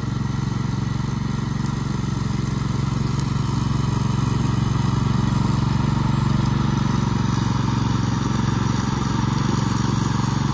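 Small red riding lawn mower's engine running steadily while the mower cuts tall grass.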